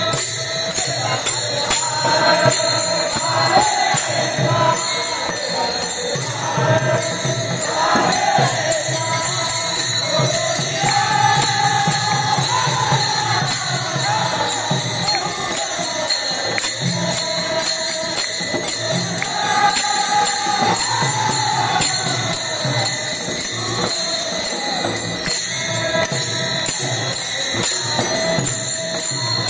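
Devotional Ganesh bhajan: voices singing in chorus over many small hand cymbals (taal) clashing in a steady rhythm, with a barrel drum beating underneath.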